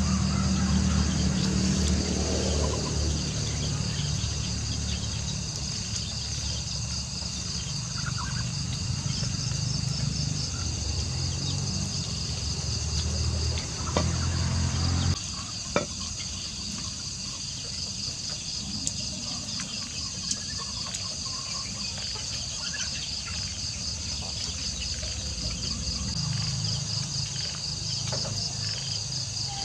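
Night insects, crickets, chirring in a steady high continuous trill, over a low rumble that drops away about halfway through. A couple of sharp clicks come about 14 and 16 seconds in.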